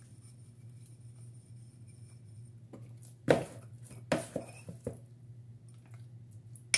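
A spoon knocking and scraping against a bowl and muffin cups as muffin batter is spooned out: a few sharp clinks, the loudest about three seconds in, then several more over the next two seconds.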